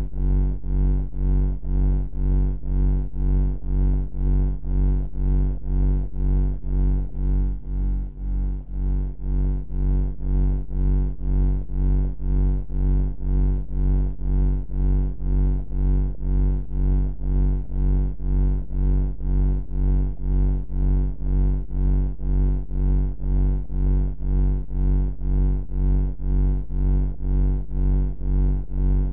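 Low, steady droning hum of a bunker-style ambient sleep sound, pulsing evenly about three times every two seconds, with its weight deep in the bass. It dips briefly about eight seconds in.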